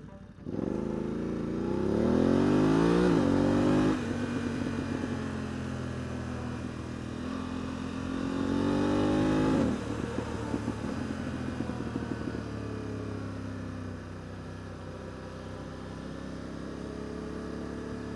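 Motorcycle engine, heard through a helmet-mounted mic, accelerating hard: the revs climb and then drop sharply at a quick-shifter upshift, about four seconds in and again near ten seconds. The engine then eases off as the bike slows, and it runs steadily near the end.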